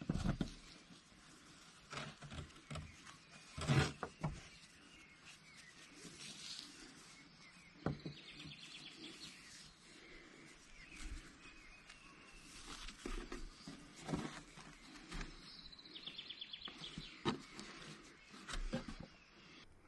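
Faint, scattered rustling and soft knocks of a braided rope being pulled through and tied into a bowline on a wooden table, with a slightly louder knock about four seconds in.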